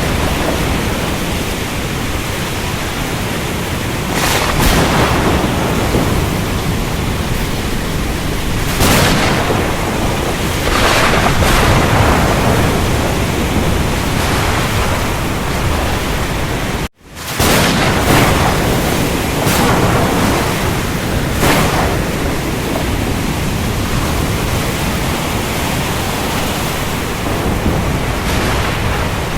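Thunderstorm over the ocean: a loud, steady rush of rain and surf, with louder surges every few seconds. The sound cuts out for an instant about seventeen seconds in.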